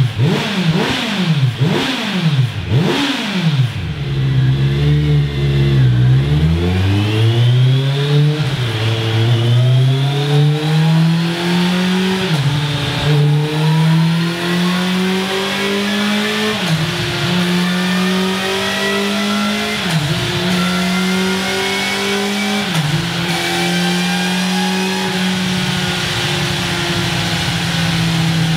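Kawasaki Z900's inline-four engine through a Scorpion Serket Taper slip-on exhaust, revved on a dynamometer: about five quick throttle blips, then a long pull with the engine note climbing and dipping briefly about four times before holding steady at high revs.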